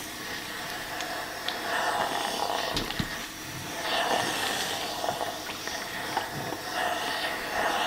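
Steam iron in use: soft hissing puffs of steam rising and falling several times, with light clicks and knocks as the iron is handled.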